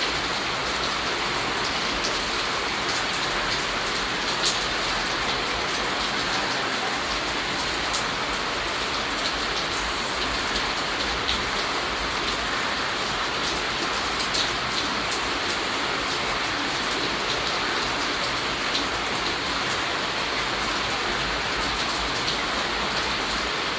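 Steady rain falling: a continuous, even hiss with many scattered raindrop ticks.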